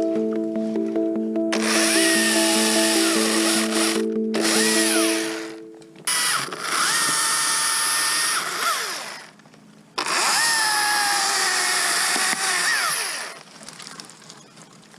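Two-stroke chainsaw cutting balsam fir in three bursts of about three to four seconds each. Between the bursts it drops back briefly, and its pitch rises and falls within each one. Background music plays under the first part and fades out after the first cut.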